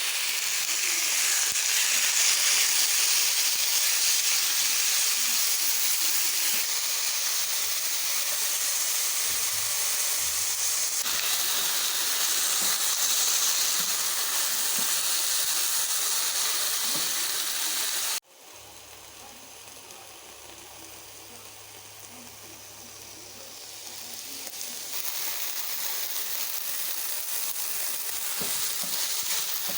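Chicken sizzling as it is stir-fried in a hot pan, a loud steady hiss. About 18 seconds in it cuts off abruptly to a quieter sizzle, which builds up again a few seconds later.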